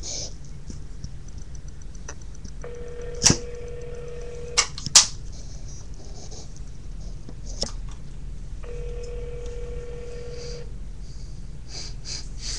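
Telephone ringback tone: the line ringing while the call waits to be answered, in the North American pattern of two-second rings with about four seconds of quiet between them. It rings twice, and a few sharp clicks fall in the gaps, the loudest a few seconds in.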